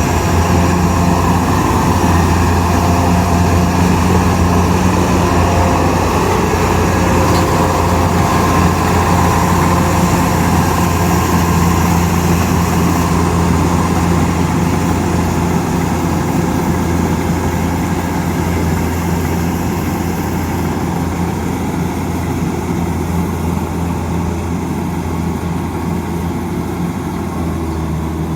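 Kubota 105X combine harvester's diesel engine running steadily with a low drone and mechanical clatter, getting slightly quieter over the last few seconds.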